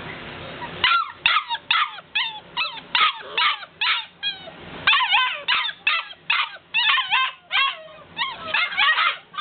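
Golden retriever puppies yipping and whining in short, high cries, about two a second, starting about a second in, with several voices overlapping near the end. They are crying to be let out of their crate.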